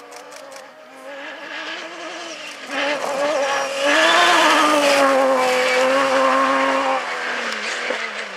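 Off-road rally buggy's engine running hard as it slides through a dirt corner. The engine note climbs about four seconds in, holds at its loudest for a few seconds, then falls away near the end, with a few sharp clicks in the first second.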